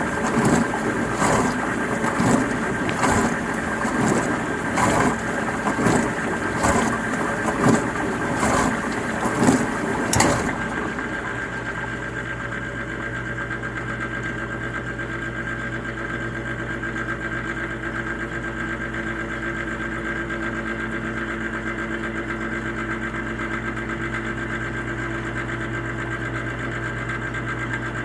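Dishwasher running: water spraying and splashing inside the tub in uneven surges for about ten seconds, then the spraying stops abruptly and only the steady hum of its motor or pump goes on.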